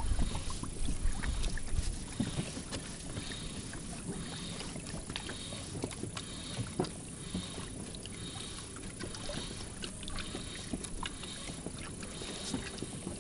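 Small wind-driven waves lapping and slapping against the hull of a drifting boat, a run of irregular little splashes and knocks. Wind buffets the microphone in the first couple of seconds.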